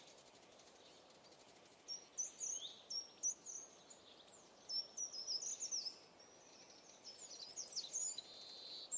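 Songbirds singing, short high chirps in several bursts starting about two seconds in, over a faint steady hiss.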